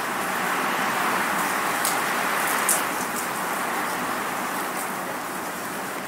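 Rain and wind: a steady, even hiss of rain that grows a little louder in the first half, with a few sharp drip ticks around the middle.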